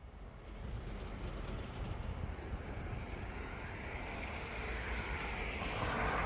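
Steady rushing noise of a passing vehicle, growing louder near the end.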